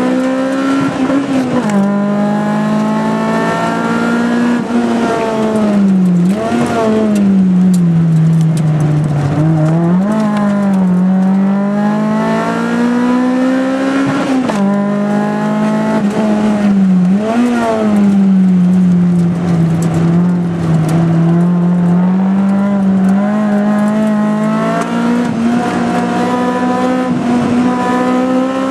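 Tuned Mitsubishi Colt MIVEC's engine, heard from inside the cabin, driven hard on track: the revs climb and fall over and over, with several quick sharp drops and recoveries.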